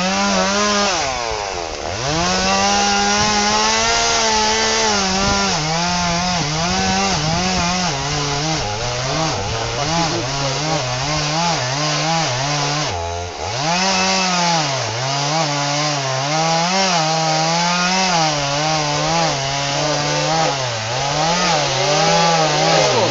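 Chainsaw running under load as it cuts through a tree trunk that is hollow and rotten in the middle. The engine pitch wavers up and down with the cut, and it sags sharply twice, about a second and a half in and again about halfway through.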